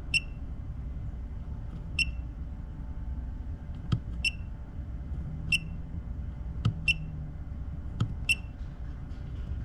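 Digital GPS speedometer beeping as its push switch is held down to enter the settings menu: six short high beeps spaced roughly a second and a half apart, with a few faint clicks from the switch in between.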